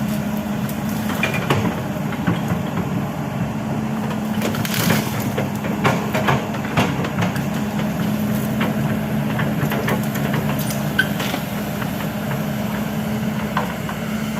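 Kobelco SK200 hydraulic excavator's diesel engine running steadily, with scattered sharp cracks and knocks from the machine at work, several of them about five to seven seconds in.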